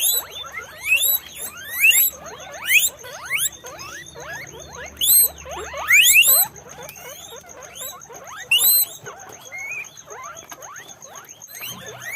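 Several guinea pigs squeaking, a dense chorus of short overlapping rising squeals, several a second, with a few louder ones standing out.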